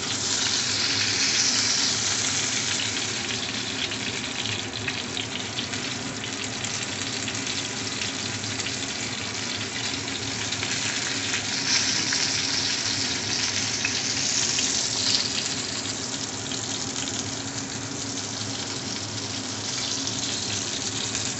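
Bombay duck (lote fish) chops frying in hot oil in a pan, a steady sizzling hiss that swells a few times.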